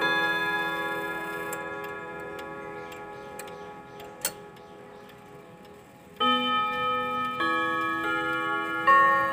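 Steel chime rods of an ODO clock struck by its hammers: the ringing notes die away slowly, a single click comes about four seconds in, and about six seconds in the hammers strike again, playing further notes of the chime melody.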